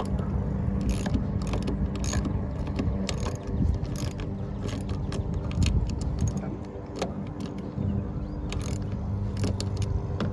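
Hand ratchet wrench clicking in irregular strokes as the bolts of a side mirror are tightened onto a car door, over a steady low hum.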